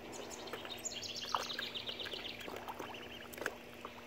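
Three-week-old ducklings peeping: scattered short high calls, with a fast run of chirps slowly falling in pitch from about a second in.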